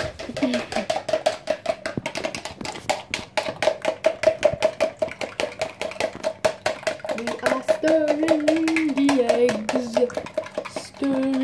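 A fork beating eggs in a plastic measuring jug: quick, steady clinking strokes with a ringing knock from the jug. From about seven seconds in, a low voice hums along with it.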